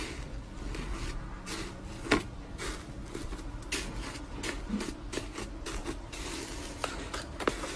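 Slime being squeezed and worked by hand, making irregular small clicks and pops over a soft rubbing noise.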